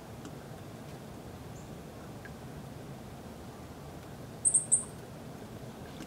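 Three quick, very high-pitched chirps from a small bird about four and a half seconds in, over a steady low background hiss of outdoor ambience.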